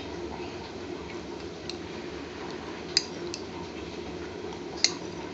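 Metal spoon tapping against a stainless steel saucepan as oil is spooned in: a few sharp clicks, the loudest about three seconds in and again near the end, over a steady low hum.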